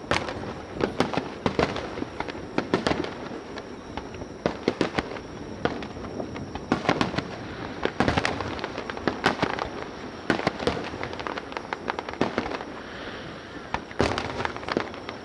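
Aerial fireworks going off in rapid succession: a dense run of sharp bangs and cracks, several a second at the busiest moments, over continuous crackling.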